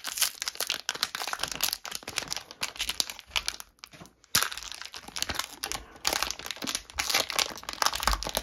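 Plastic wrapper of a 2008-09 Fleer basketball card pack being torn open and crinkled by hand, a dense crackling. A brief pause a little before four seconds in, then a sharp crack and more crinkling as the clear plastic around the cards is pulled away.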